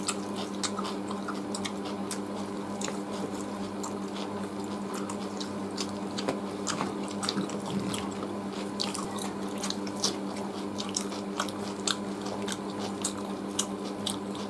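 Close-up eating sounds of two people eating roast chicken and rice by hand: chewing and tearing meat, heard as many small sharp clicks and crackles. Under it runs a steady low hum.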